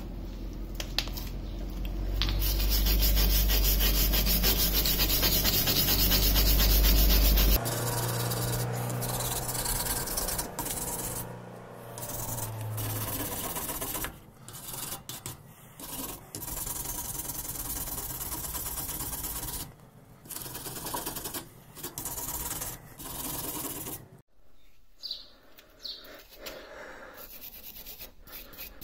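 Cast brake caliper being scrubbed by hand with an abrasive tool such as a wire brush or abrasive sponge to clean off dirt and burnt deposits. The scraping is loudest and densest for the first seven or so seconds, then comes in shorter runs of strokes with brief breaks.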